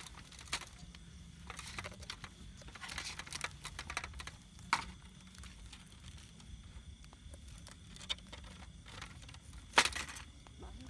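Knife and fork carving a whole roast chicken on a wooden cutting board: scattered sharp clicks and crackles, the loudest click near the end.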